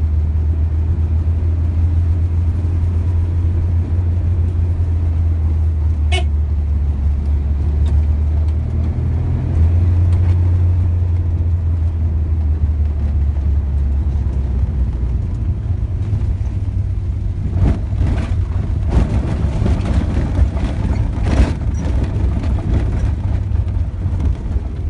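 A vehicle's engine and road noise drone steadily as it drives, the pitch shifting about a third of the way in. In the last third, irregular knocks and rattles join in as it moves onto a rough dirt track.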